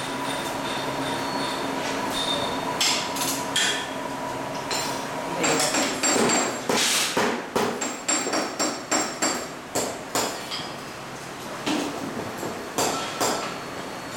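Steel wire rods clanking against a steel bending jig and metal workbench as they are bent by hand: a run of sharp metallic knocks with ringing, about two a second, starting about five seconds in and thinning out near the end.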